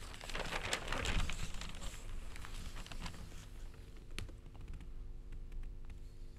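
Newspaper pages rustling and crinkling as they are handled, loudest in the first two seconds, then scattered light paper ticks and taps with one sharper click about four seconds in.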